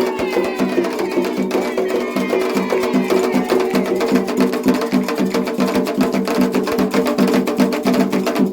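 Candomblé ritual drumming: atabaque hand drums and a struck agogô bell playing a fast, even rhythm, with voices singing in the first few seconds.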